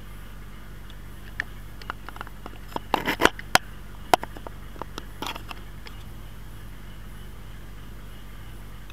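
Light clicks and scrapes, thickest about three seconds in, over a steady low hum.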